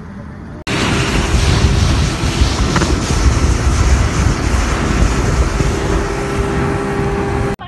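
Wind buffeting the microphone with a boat's motor running underneath as the boat moves at speed. It starts abruptly under a second in and cuts off suddenly just before the end.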